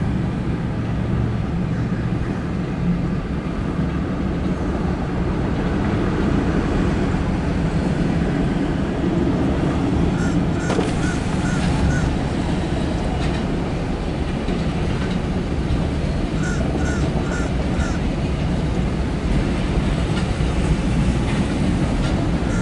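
Empty autorack freight train rolling past, a steady rumble of steel wheels on the rail joints. Twice a quick run of four or five short high calls cuts in over it.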